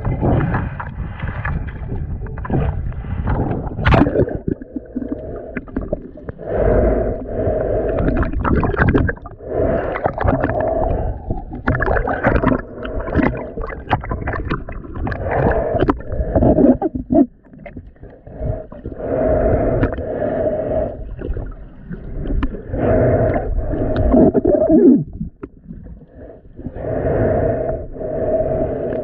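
Muffled water sloshing and gurgling heard through a camera submerged in the sea, surging unevenly every few seconds.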